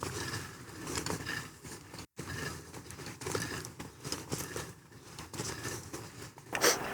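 Irregular rustling and crinkling with small knocks, like gear or clothing being handled. The sound drops out completely for a moment about two seconds in.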